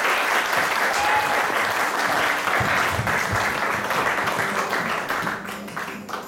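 Theatre audience applauding at the end of a show, a dense clapping that starts to thin out about five seconds in, with music starting faintly underneath near the end.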